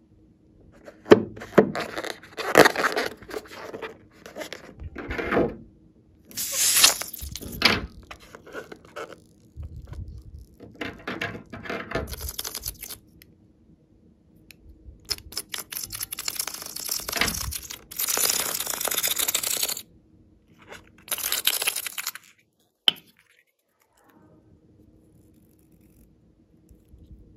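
A slime-filled rubber balloon handled, snipped open with scissors and squeezed, in repeated noisy bursts of rubbing and squishing as slime is pushed out of it into a glass bowl. There is one sharp click a little before the end.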